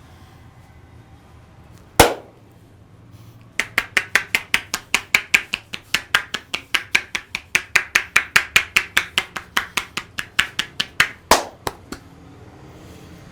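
A massaging barber's hands striking the body in rapid tapotement, a steady run of sharp slaps at about five a second lasting some seven seconds. A single harder slap comes about two seconds in, and another just after the run ends.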